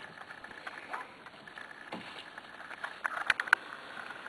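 Eight-week-old Pembroke Welsh corgi puppies at play: a quick cluster of sharp clicks and taps about three seconds in, over steady low background noise.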